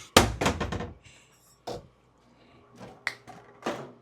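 A run of sharp clicks: four or five close together in the first second, then a few more spaced out over the rest.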